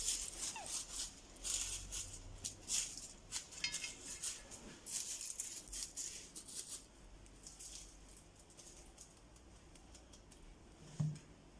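Crisp, oven-browned pastilla pastry leaves (warqa) crackling and rustling as they are handled and broken up: a quick run of dry crackles that thins out after about seven seconds. A short low thud near the end.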